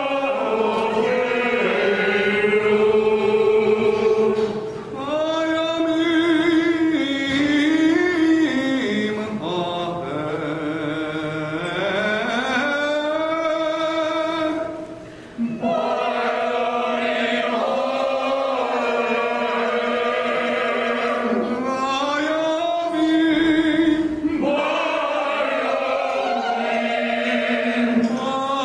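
Small mixed choir of men and women singing Chanukah music in parts, in long held phrases with brief breaks between them.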